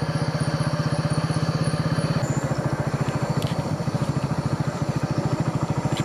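Motorcycle engine running at a steady speed, its exhaust giving a fast, even pulsing. Thin, steady high-pitched tones sound faintly above it, changing pitch about two seconds in.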